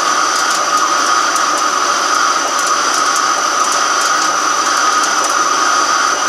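Microcut BNC-6500 heavy-duty flat-bed lathe running with a large steel workpiece spinning in its chuck: a steady machine noise with a thin high whine over it.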